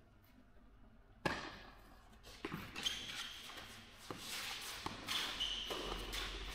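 Tennis rally on a clay court: a sharp racket-on-ball hit about a second in, the loudest sound, then a few more hits and bounces at irregular spacing, with shoes scuffing and sliding on the clay. The knocks ring out in a large indoor hall.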